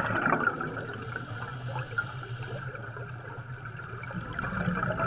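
Underwater sound of streams of air bubbles rising and gurgling, a dense crackle with a low steady rumble underneath.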